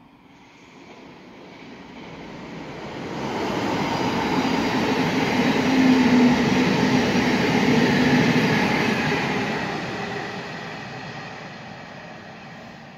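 Electric multiple-unit passenger train passing through the station without stopping. The rumble builds steadily, is loudest in the middle with a steady low hum, then fades as the train draws away.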